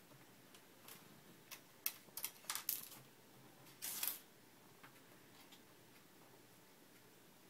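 Small hard objects left in a desk drawer clicking and knocking against the drawer as a cat bats them around: a run of sharp clicks over the first three seconds and a longer rattle about four seconds in.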